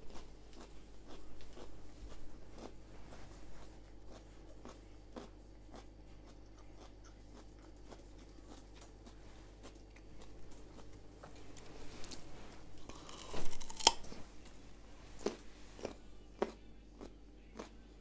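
Raw carrot being bitten and chewed: scattered crunching clicks, with one loud, sharp, snapping bite about two-thirds of the way in.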